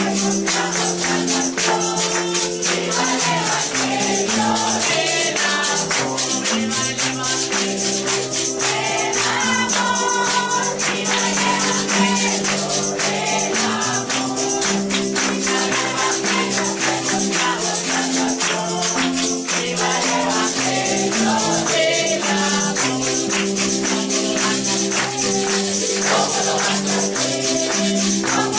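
Live gospel worship music: a congregation singing along with a band, over a moving bass line and a tambourine shaken in a steady, fast beat.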